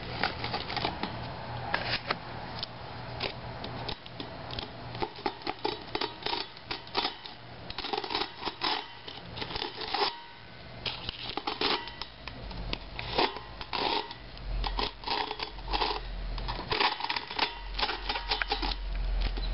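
Parts of a blown 18-inch subwoofer being cut and pried apart by hand: a steady run of irregular scraping, tearing and cracking sounds with sharp clicks.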